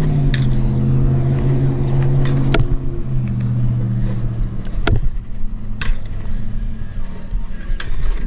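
Pro scooter wheels rolling on smooth concrete with a steady hum that shifts slightly in pitch as the speed changes. Several sharp clacks break it as the wheels drop onto and off ledges and run over joints.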